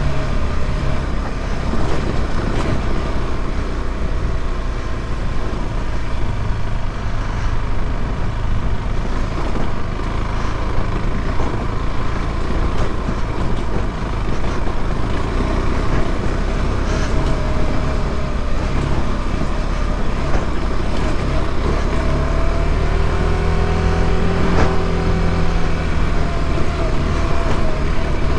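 KTM 390 Adventure's single-cylinder engine pulling at low speed in a low gear over a rocky dirt track, with a few sharp knocks from the bike over the stones. Near the end the revs rise and fall again.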